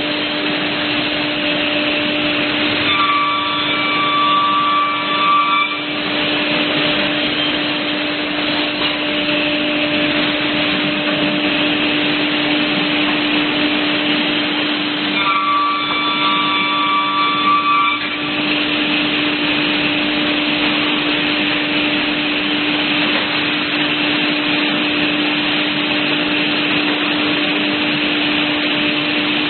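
Automatic-feeding CNC panel saw running with a steady machine hum. Twice, about three seconds in and again about fifteen seconds in, a higher whine joins for about three seconds as the saw makes a cut.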